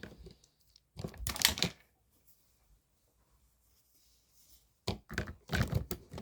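Two bursts of close handling noise, rustling, clicking and light knocks, with a quiet stretch between them.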